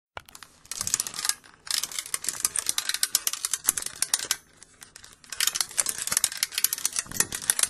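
Ratcheting, rattling clicks in three runs with short pauses between them as a toy-theatre stage curtain is wound down.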